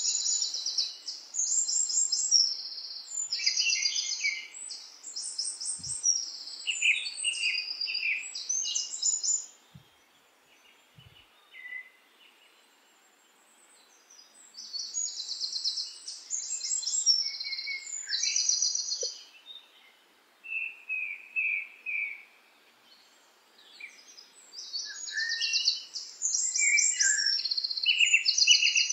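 Several songbirds singing: overlapping bursts of fast, high trills and chirps, with a few seconds' lull near the middle.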